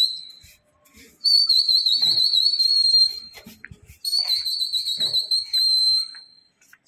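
A pigeon flier whistling to his flock: two long, shrill whistles, each warbling at first and then held on one high note, about a second apart.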